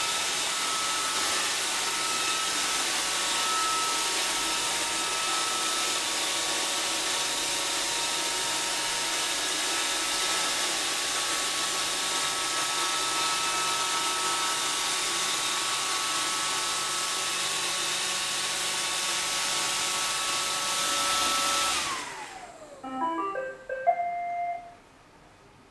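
iRobot Roomba 530 robot vacuum running with a steady whirring hum and high whine. About 22 seconds in it shuts off, the whine sliding down in pitch as the motors spin down, followed by a short run of electronic beep tones.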